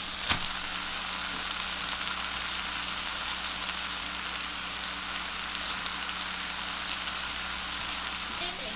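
Food sizzling in a frying pan: a steady hiss, with one sharp click just after the start.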